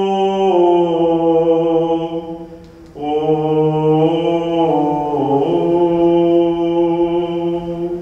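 A man's voice chanting the drawn-out closing cadence of an Orthodox Gospel reading in Byzantine style: long held notes that step down and up in pitch, with a breath break about two and a half seconds in.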